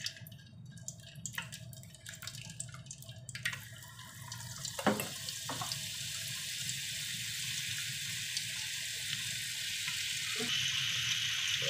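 Hot oil with whole seeds crackling faintly in a cooking pot. About five seconds in there is a knock as a lump of fat goes in, then a steady frying sizzle that grows and steps up louder near the end as the fat melts and bubbles.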